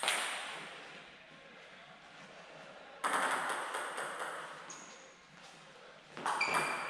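Table tennis ball knocks off bat and table: a single hit at the start, another about three seconds in, each fading slowly in the hall, then a quick run of sharp pinging hits near the end as a rally begins.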